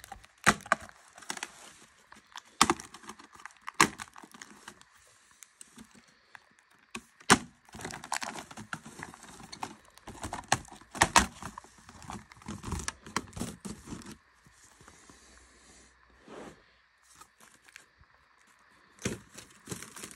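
Lenovo IdeaPad 330 laptop keyboard being pulled and peeled out of its plastic top-cover frame by hand: irregular sharp cracks and snaps with stretches of crackling, tearing noise, easing off for a few seconds near the end.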